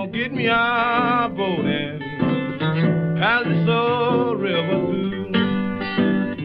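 Background music: an acoustic blues song with guitar, its melody wavering and sliding in pitch.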